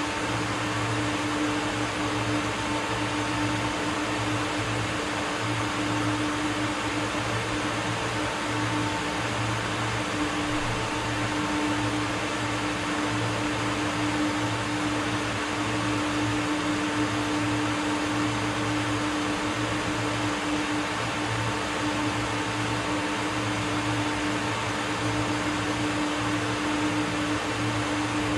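Steady machine hum with a fan-like whir and a constant tone, unchanging throughout, typical of industrial equipment running.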